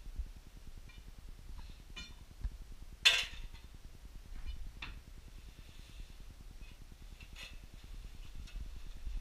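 Scattered light knocks and clinks of hard objects, with one sharper clatter about three seconds in, over a faint low rumble.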